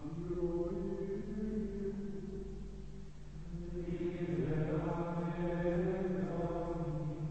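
Carthusian monks singing Latin plainchant in unison, men's voices holding long notes. About four seconds in the singing grows louder and fuller.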